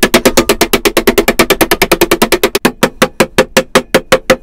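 Small hammer tapping thin copper sheet down over the edges and corners of a plywood roof: quick, even metallic taps, about nine a second at first, slowing to about six a second after a couple of seconds, with a ringing tone under them.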